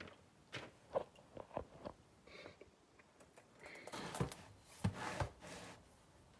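A few faint clicks and soft rustles close to the microphone, with a denser patch of clicks and rustling about four to five seconds in.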